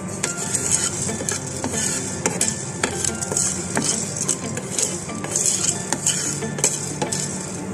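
Wooden spatula stirring whole black peppercorns, cloves and cinnamon bark in a dry frying pan: repeated scraping strokes across the pan with the spices clicking and rattling against it as they are dry-roasted without oil.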